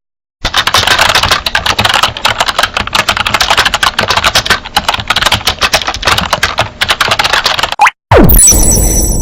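A sound effect of a dense, rapid clatter of clicks that runs for about seven seconds and stops suddenly, followed near the end by a short falling swoosh that opens the next effect.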